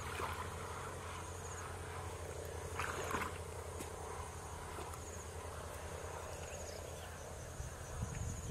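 Insects chirping and trilling in a steady high-pitched chorus over a low steady rumble, with a brief louder sound about three seconds in.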